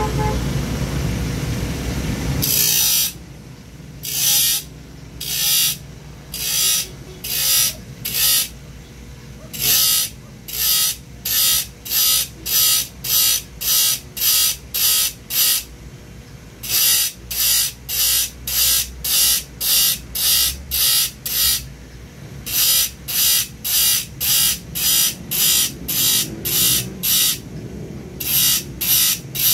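A hand file rasping across the teeth of a hand saw to sharpen them: short, even strokes about one to two a second, in runs of several with brief pauses between. The first couple of seconds hold a louder low noise before the strokes begin.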